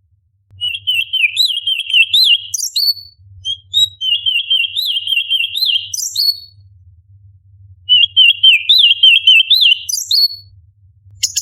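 Orange-bellied leafbird singing: three bursts of fast, wavering chatter, each a couple of seconds long and each ending in sharp, high piercing notes.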